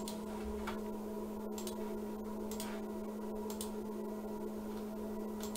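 A steady low electrical hum with a few faint, irregular clicks over it.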